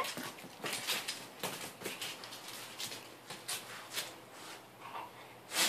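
Dogs' paws and claws scrabbling and tapping on concrete as they chase and tussle over a rubber ball: a run of irregular light clicks and scuffs, with one sharper tap near the end.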